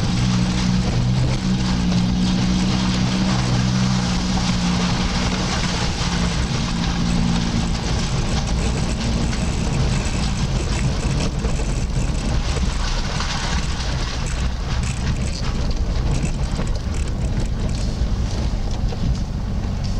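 Off-road vehicle running at low speed through an unlit rock tunnel and out onto a rough mountain track, a continuous engine and tyre rumble. A steady low hum in it gives way to a rougher, even rumble about seven seconds in.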